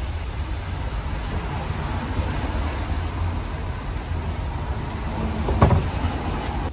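Steady low rumbling noise from a faulty camera microphone, with one thump about five and a half seconds in.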